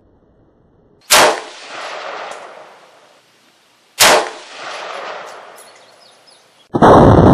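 Two AR-15 rifle shots about three seconds apart, each a sharp crack followed by a rolling echo that fades over about two seconds. Near the end a loud, continuous rushing noise begins abruptly.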